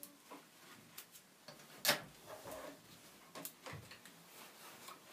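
Newspaper being taped: a few short crackles and taps of paper and sticky tape, the loudest about two seconds in.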